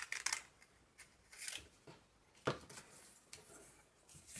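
Scissors snipping through folded paper: a quick run of short snips at the start, then a few single snips.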